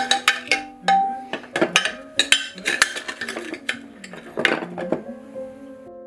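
Metal measuring cups clinking and clattering against each other and a ceramic holder as one is picked out: a quick run of sharp clinks that stops about five seconds in. Soft background music plays underneath.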